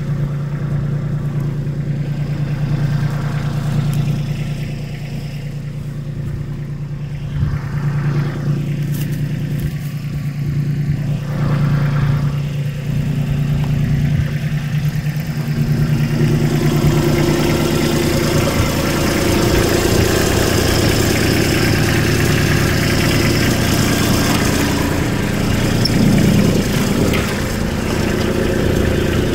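Kubota BX compact tractor's three-cylinder diesel engine running steadily, growing louder about halfway through.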